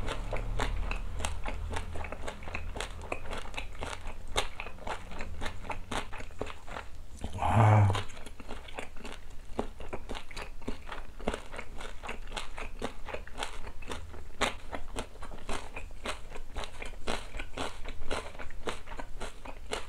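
A person chewing a mouthful of boiled pork with salted napa cabbage and kimchi: steady crunching, several chews a second. One brief louder sound comes about halfway through.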